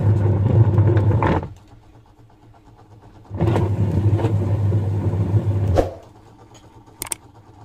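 Wash motor of a Whirlpool 8 kg semi-automatic washing machine humming as it drives the pulsator through the gearbox, with a hand pressing down on the pulsator as a load. It runs, stops for about two seconds, then runs again for about two and a half seconds and stops, with a short click near the end. The gearbox turns the pulsator one way but fails to move it in reverse under pressure: a faulty gearbox.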